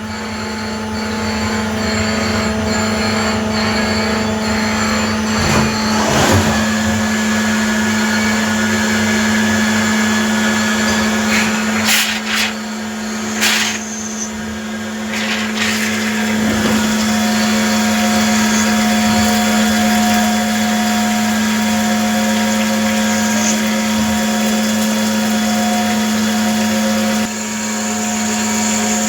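CNC lathe running a turning cycle on D2 tool steel: a steady machine hum with a noise hiss over it, broken by a few sharp clicks partway through.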